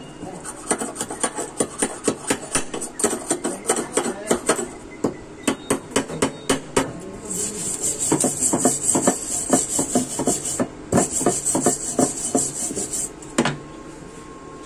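Chipping hammer tapping rapidly on a fresh stick weld in thin galvanized steel box tubing, knocking off the slag, about four or five light metallic taps a second. About seven seconds in, a brass wire brush scrubs the weld with a hissy scratching in two spells, followed by a single knock.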